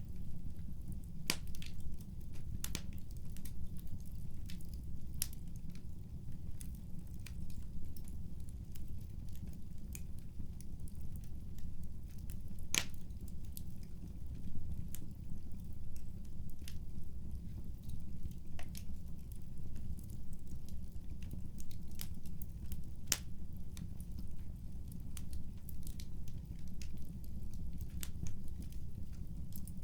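Wood fire in a fireplace crackling: sharp, irregular pops and snaps over a low, steady rumble.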